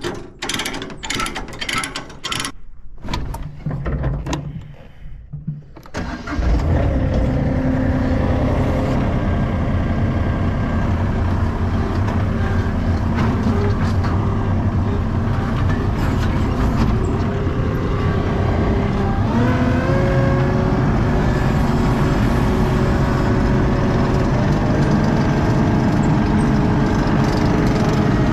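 A ratchet chain binder is released with sharp clicks and chain rattle. About six seconds in, a compact track loader's diesel engine starts suddenly and runs steadily at a high level. Around twenty seconds in it revs up briefly as the loader is driven off the trailer.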